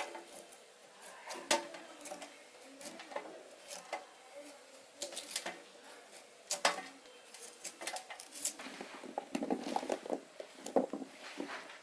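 Kitchen knife paring the skin off a white yam: irregular scraping strokes and sharp clicks. Near the end, the cut yam pieces are handled on a metal plate, with a denser run of light knocks.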